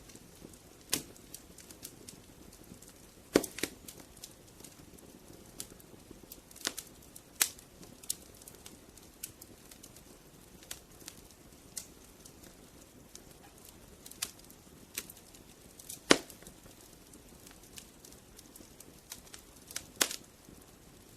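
Wood fire crackling: sharp, irregular pops and snaps over a low steady hiss of burning, with a few louder pops about three seconds in, about sixteen seconds in and near the end.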